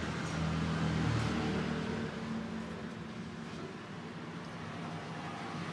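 A motor vehicle's engine running close by in road traffic, loudest in the first couple of seconds, then easing to a steady hum.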